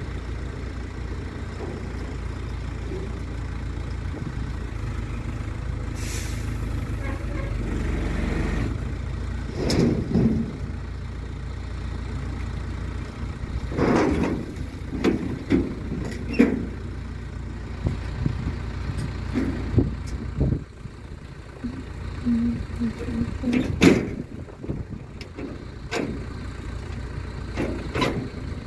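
Mecalac 12MX wheeled excavator's diesel engine running steadily while it loads soil. Irregular knocks and bangs come as loads of soil and the bucket strike the metal tipper trailer, the loudest about three-quarters of the way through.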